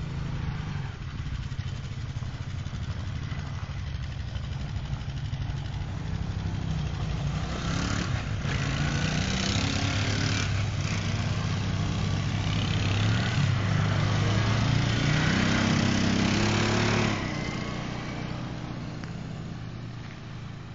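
Rebuilt Arctic Cat ATV engine running. It revs up and gets louder from about eight seconds in, with its pitch climbing in steps, then drops back near seventeen seconds and fades as the quad rides off.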